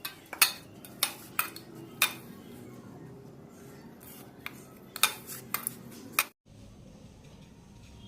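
Metal kitchen utensil knocking against cookware in scattered sharp clinks: several in the first two seconds, then a quick cluster about five to six seconds in.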